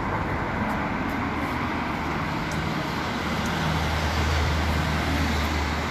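City street traffic: road vehicles running, with a low engine hum from a nearby vehicle growing louder in the second half.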